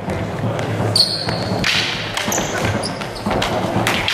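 Two stick fighters' feet thudding and shoes squeaking on a wooden sports-hall floor, with several sharp knocks and voices in the hall behind.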